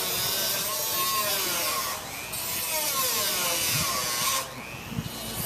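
Small power tool cutting into the sealed copper cornerstone box: a steady grinding whine with a wavering pitch. It drops out briefly about two seconds in and again for about a second near the end.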